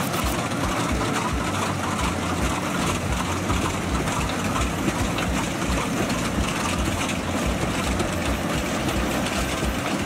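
Yanmar rice combine harvester running steadily as it cuts through a wet paddy: a constant diesel engine and machinery noise.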